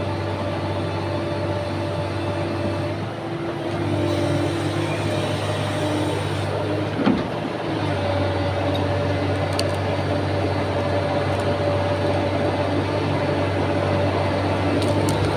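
Excavator diesel engine running steadily under load, with a single knock about seven seconds in.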